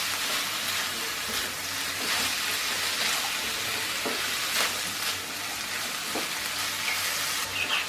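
Chicken, egg and vegetables sizzling in a nonstick wok over a high flame, stirred and tossed with a silicone spatula that scrapes and knocks against the pan now and then.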